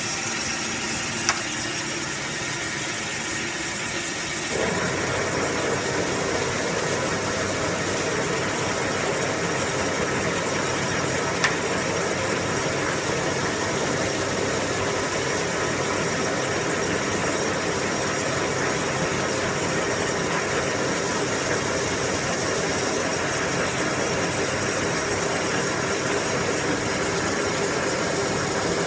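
Blanchard No. 11 rotary surface grinder running, its drives working under power feed: a steady mechanical whir and hum. About four and a half seconds in it turns louder and fuller as a further drive engages, and there are a couple of light clicks.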